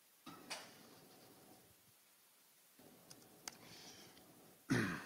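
A few faint computer keyboard clicks as a command is typed and entered, among soft breath noises on a microphone, with a louder short noise near the end.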